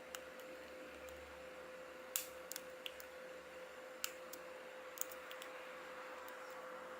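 Sparse small metallic clicks and taps of lock-picking tools working in the keyway of a cheap padlock, the sharpest about two seconds in, over a steady faint hum.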